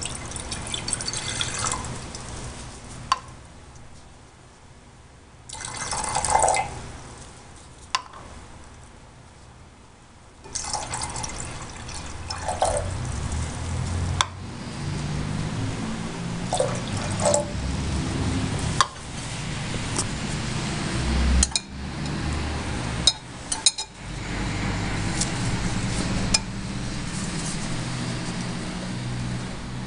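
Liquids poured into a large glass beaker: copper chloride solution splashing in near the start, then water poured again about six seconds in. After that come sharp clinks and knocks of glassware being handled and stirred.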